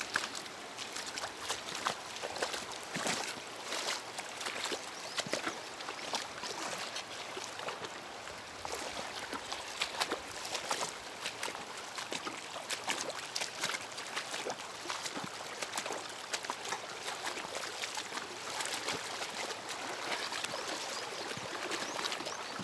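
Floodwater running and trickling, with many small irregular splashes and drips.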